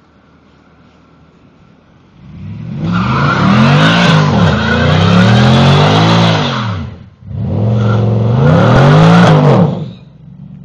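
Mercedes-Benz W211 E63 AMG's 6.2-litre V8, through an Eisenmann exhaust with no resonators, idling and then revved hard in two long bursts during a burnout. The engine pitch rises and falls over and over above the squeal of the spinning rear tyres. It lets off briefly about seven seconds in and drops back to idle near the end.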